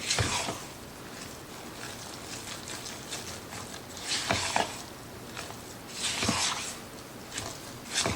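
A spoon stirring and scraping thick cornbread batter in a mixing bowl, in a few short strokes: one at the start, one around four seconds in, one around six seconds in and one near the end.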